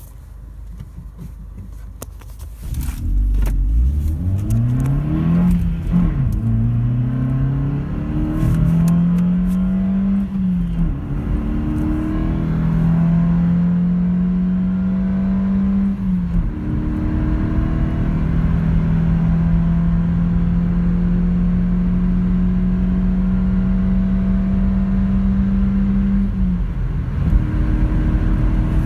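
A Peugeot 307's 1.6-litre 16-valve naturally aspirated petrol engine under full-throttle acceleration, heard from inside the cabin. After a quieter first couple of seconds it pulls hard, the engine note rising through each gear and dropping at each of several upshifts, then holding high revs in the upper gears.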